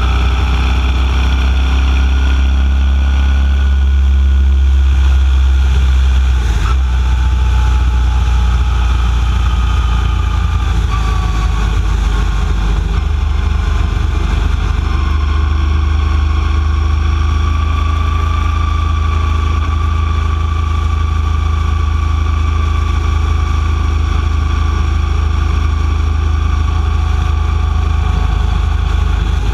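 Vehicle engine and road noise heard from an onboard camera while cruising steadily along a highway, a heavy low rumble with faint tones drifting slowly up and down in pitch.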